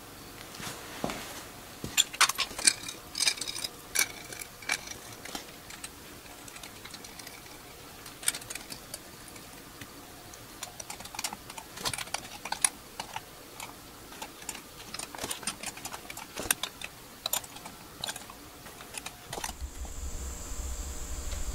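Scattered light clicks, taps and clinks of cast aluminium carb scoops being handled and seated onto carburettor flanges. About two seconds before the end a steady low hum with a high hiss comes in.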